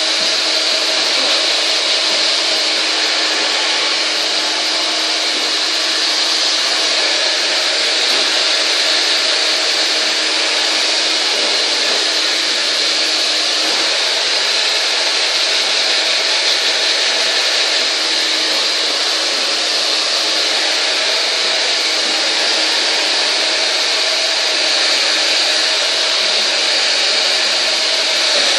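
Hand-held hair dryer blowing steadily at close range: a loud, even rush of air over the motor's hum, with no breaks.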